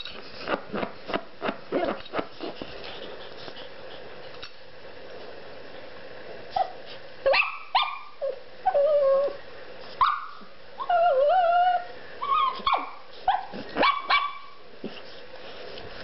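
Shih Tzu barking and yipping in play, short high calls in quick bunches mixed with drawn-out wavering whines. In the first few seconds, a quick run of sharp taps comes before the calls begin.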